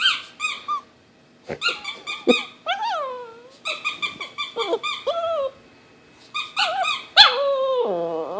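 Rubber squeaky toy squeezed in quick bursts of squeaks, with a dog answering in whining, falling moans, the longest near the end; the dog dislikes the toy's squeaking.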